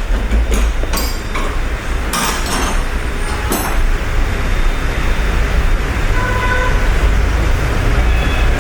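Workshop noise: a steady low hum, with a run of sharp metallic clinks from tools being handled during disassembly in the first four seconds. Brief high tones sound about six seconds in and again near the end.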